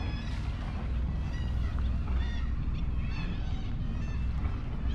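A flock of gulls calling, many short cries overlapping one another over a low steady rumble.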